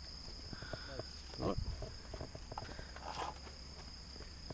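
Handling noise as a model racing plane is readied on the ground, engine not running: scattered clicks and knocks, with a louder thump about one and a half seconds in. A steady high-pitched whine sits underneath, with faint distant voices.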